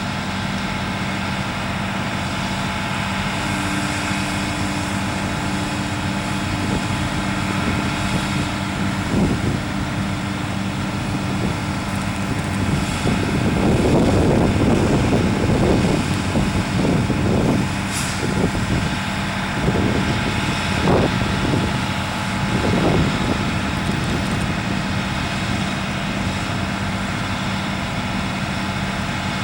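Heavy diesel trucks working a concrete pour, with one engine holding a steady hum throughout. Through the middle, for about eight seconds, the engine noise grows louder and uneven with several surges, and a brief hiss is heard partway through it.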